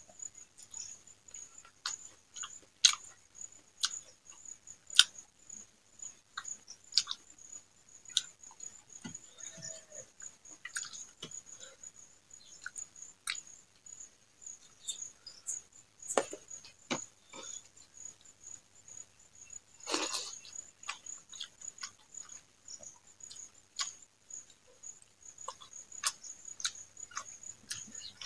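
Close-up eating sounds of rice and greens eaten by hand: scattered sharp mouth smacks and chewing, with two louder bursts in the middle. A steady, high-pitched pulsing tone runs underneath.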